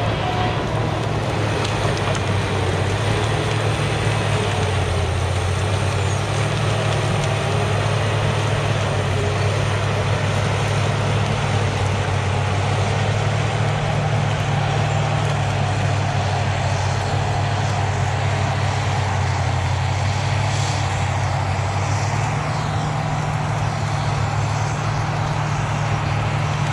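Diesel engine of a Caterpillar 973C track loader running steadily as a deep drone. Its note sinks slightly a few seconds in and comes back up near the end.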